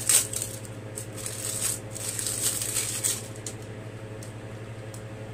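Light clicks and rustles from handling a small plastic shower gel bottle, busiest in the first three seconds and then dying down to a few faint ticks.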